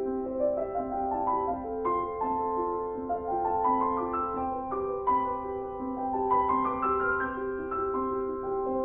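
Background piano music, with notes climbing in quick rising runs several times.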